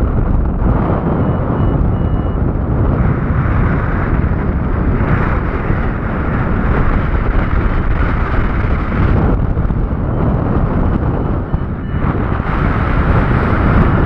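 Wind rushing over a paraglider pilot's action-camera microphone in flight: a loud, steady, rumbling buffet with no engine or voice in it.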